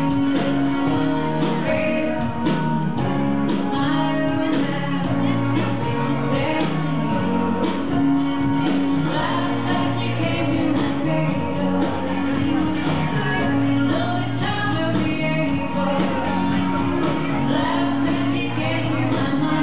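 A song with a woman singing over instrumental backing, playing steadily throughout.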